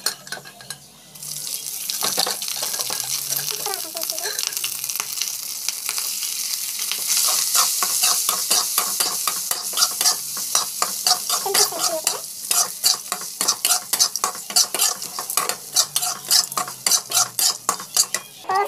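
A spatula stirring and scraping rice and peanuts in a hot pan while the oil sizzles. The sizzle starts about a second in and grows louder about seven seconds in, with quick, steady scrapes of the spatula against the pan.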